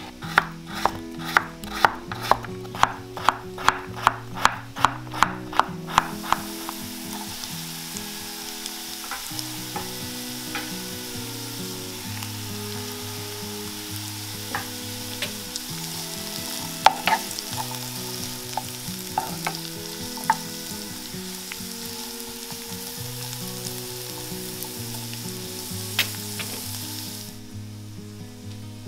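A run of about fourteen sharp, evenly spaced knocks, two or three a second, over the first six seconds. Then vegetables sizzle steadily as they fry in oil in a pan, with occasional taps and scrapes of a utensil stirring them, until the sizzle stops shortly before the end.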